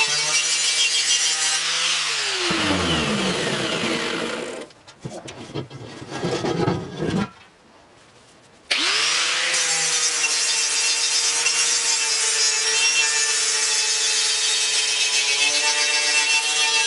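Angle grinder with a wire wheel brushing paint and rust off a 1953 Ford truck's metal grille: a steady motor whine over the scratch of the wire. About two seconds in it is switched off and winds down, followed by a few knocks and a short near silence. Near nine seconds it spins back up and brushes steadily again.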